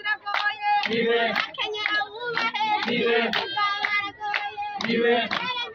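A woman's voice chanting in Kirundi over rhythmic hand clapping, about two claps a second.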